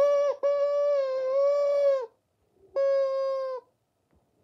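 Rubber chicken toy squeezed, giving long squawks at a steady pitch that sag in pitch as each runs out of air: three in all, the longest about a second and a half, with a shorter one near the end.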